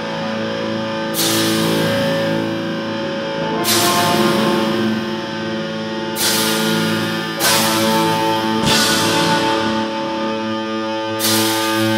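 Black metal band playing live: distorted electric guitars hold long sustained chords, and the drummer strikes five cymbal crashes that ring out over them.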